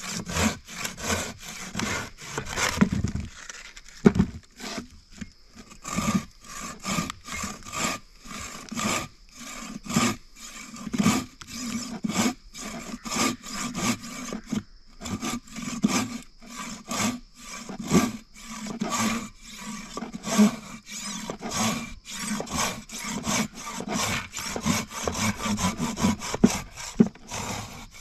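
Silky BigBoy 2000 folding pruning saw with a 360 mm blade cutting through a tree branch in steady back-and-forth strokes, about two a second, with a short pause about four seconds in.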